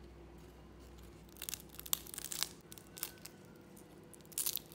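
Crisp deep-fried rice paper with seaweed crackling and snapping as it is broken apart by hand. There is a cluster of sharp cracks about a second and a half in, a single snap a little later, and another short burst near the end.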